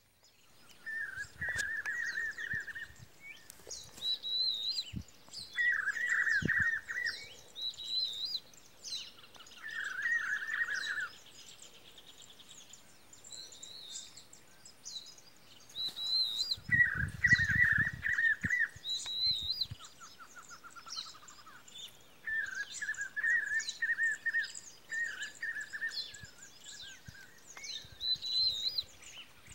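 Birds calling: short chattering phrases repeat every few seconds, with higher sharp chirps in between. A buzzing trill runs for a few seconds near the start, and there is a brief low rumble about halfway through.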